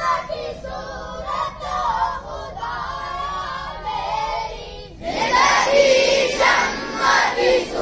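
Schoolboys chanting a prayer (dua) together in a sung, melodic recitation. About five seconds in the chanting becomes much louder and fuller as more voices join in unison.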